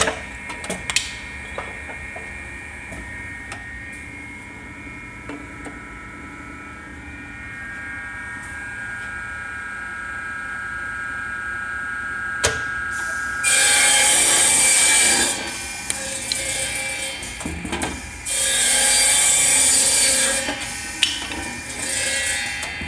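Maronda automatic wedge saw running its cutting cycle, a steady machine hum with clicks and knocks from its feed mechanism. Twice, about two-thirds of the way through, the saw blade cuts through 1-1/2 inch wood, each cut lasting about two seconds and far louder than the hum.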